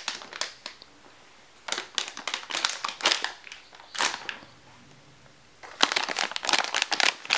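Clear plastic sleeve around a graphics card crinkling as the card is gripped and lifted out of its box. The crinkling comes in spells with short quiet gaps and grows denser near the end.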